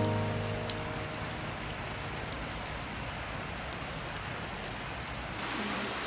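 Steady rush of a river's flowing water, turning brighter and a little louder near the end. At the very start a low ringing note sounds and fades out over about a second.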